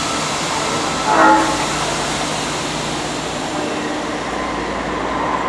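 Osaka Metro 70 series linear-motor subway train running into the station platform with a steady rumble and hiss. About a second in there is a short horn toot.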